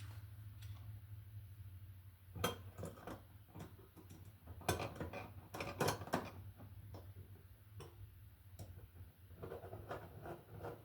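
Scattered metallic clicks and clinks of small hardware and hand tools being handled, with a cluster of sharper knocks around the middle, over a steady low hum.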